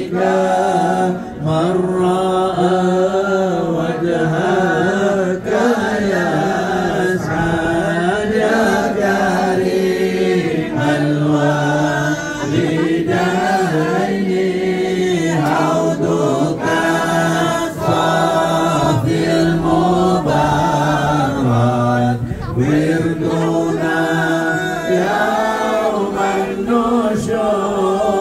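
A congregation chanting Arabic devotional verses in praise of the Prophet Muhammad together, unaccompanied, as in maulid recitation. The singing is continuous, with long held notes that rise and fall slowly.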